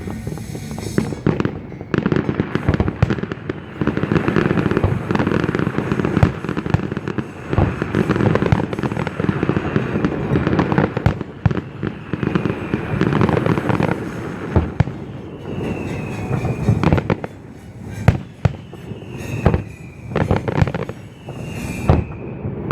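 Fireworks display: a dense barrage of bangs and crackling, thinning out about fifteen seconds in to separate bangs with several falling whistles.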